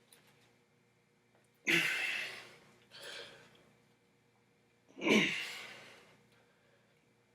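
A man's forceful exhalations while straining to bend a steel bolt by hand: three hard breaths out, the first and last loudest, the last one partly voiced like a grunt.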